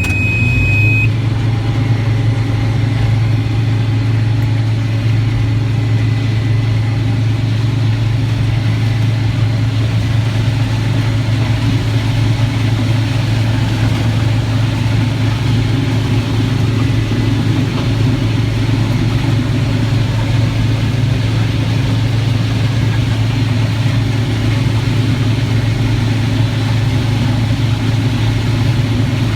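Farm harvest machinery's diesel engine running steadily under load, a constant low drone without change in pitch. A short high tone sounds right at the start.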